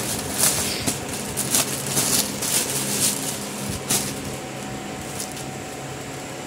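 Packed fabric suit rustling and crinkling as it is handled, laid down and unfolded on a counter, most busily in the first four seconds. A steady hum runs underneath.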